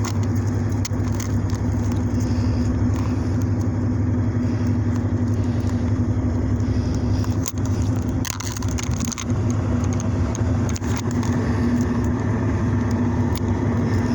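A steady low hum, with a few brief clicks about halfway through.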